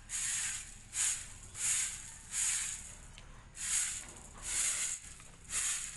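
Broom sweeping scattered dried corn kernels across a concrete floor: about seven swishing strokes, a little over one a second.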